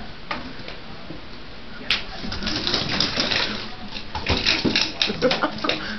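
Vertical blind slats clacking and rattling against each other as a kitten bats and climbs at them: a sharp click about two seconds in, then two bursts of rapid clatter, the second near the end.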